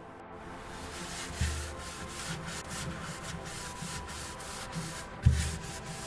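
Cotton cloth wiping down the sprayed inside of a refrigerator in quick rubbing strokes, two or three a second. Two knocks against the fridge break in, the louder one near the end.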